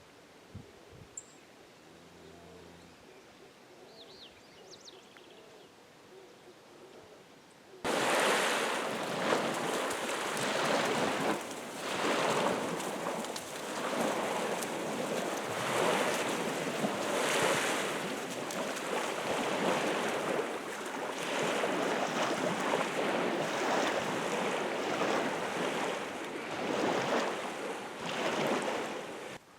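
Waves breaking on a lakeshore, surging every second or two. They start abruptly about eight seconds in, after a faint stretch with a few thin bird chirps.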